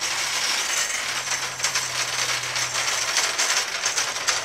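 Steady rattling, clicking clatter with a low hum through the middle.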